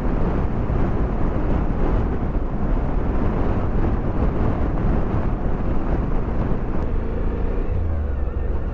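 Motorcycle under way: a steady rush of riding noise and wind over the microphone, with the engine running beneath it. About seven seconds in, a steady low engine note comes through more plainly.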